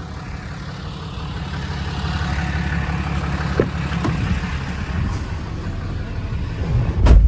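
6.7 Cummins diesel engine of a Dodge Ram 4500 idling with a steady low rumble, with a couple of light clicks in the middle and a heavy thump near the end.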